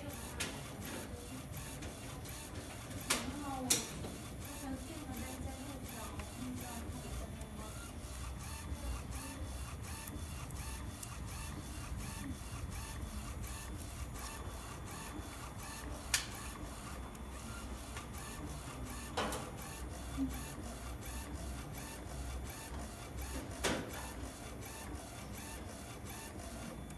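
Focus UV inkjet printer running a print job, its print-head carriage shuttling back and forth in a steady, evenly repeating rhythm. A few sharp clicks stand out, the loudest two a few seconds in.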